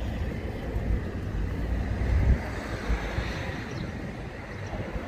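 Strong wind buffeting the microphone, an uneven low rumble that swells and eases in gusts.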